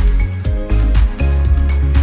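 Background music with a steady, strong bass beat.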